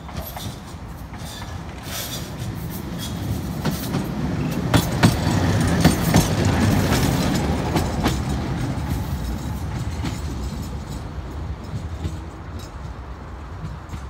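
A 71-619KT tram passing: the rumble of its wheels and motors builds, peaks and fades away, with a cluster of sharp clicks from the wheels on the rails as it goes by, about four to seven seconds in.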